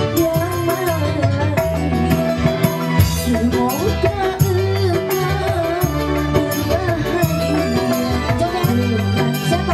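Live dangdut music: female voices singing over an electronic keyboard, with a steady drum beat and bass.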